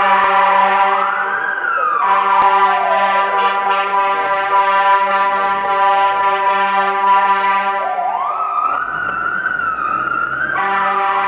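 Fire truck's air horn blasting almost without a break over a wailing siren that winds up and slowly falls away, again and again. Past the middle the horn drops back while the siren winds up and wavers at its top, then the horn comes back in near the end.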